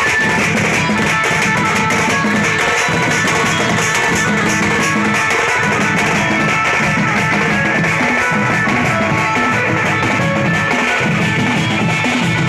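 Band party playing loud instrumental music with drums under a sustained melody line.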